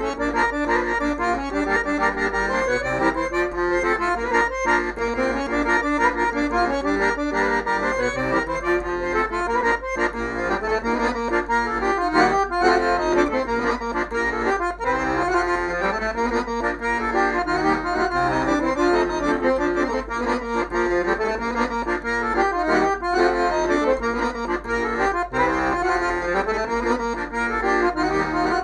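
Accordion playing an instrumental manea: a fast, ornamented melody of quick note runs.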